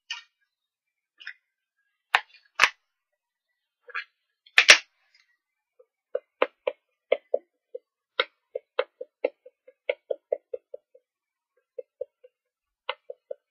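A few sharp clicks, then a StazOn ink pad dabbed again and again onto a rubber stamp on a clear acrylic block: quick light taps, about three or four a second, inking the stamp.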